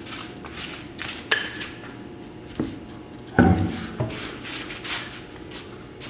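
Metal clinks and knocks as the lug nuts come off and the alloy wheel is pulled from the hub. There is a bright ringing clink about a second in and a heavier thump a little past the middle.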